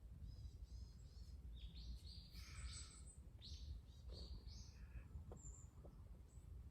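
A bird calling: a run of short, high chirps over the first four and a half seconds or so, over a faint low rumble, with a couple of faint ticks afterwards.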